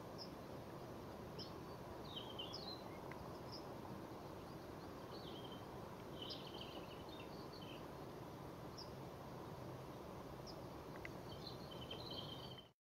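Small songbirds giving short, high chirps and call notes at scattered intervals over a faint, steady low background rumble; the sound cuts off abruptly just before the end.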